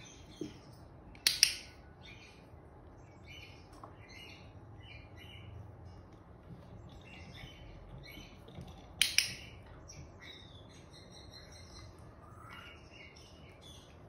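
Pet parrots, an Indian ringneck and a blue-headed pionus, making many short, high chirps, with two loud, sharp squawks about a second in and again around nine seconds.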